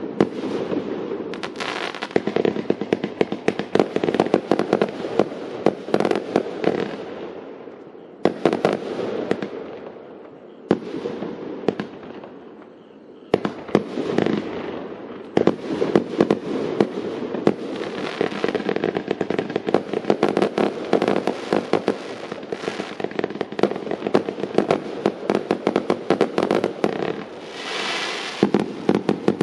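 Consumer fireworks cake of 30 mm shots firing in rapid succession: a dense run of launches and bursts, thinning to a quieter lull about 11 to 13 seconds in, then firing densely again. Near the end, a steadier crackling.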